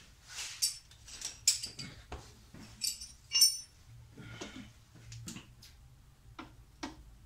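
Metal hand tools clinking: a socket and wrench being handled and fitted, with several sharp metallic clinks in the first half, the loudest about three and a half seconds in, then a few lighter clicks.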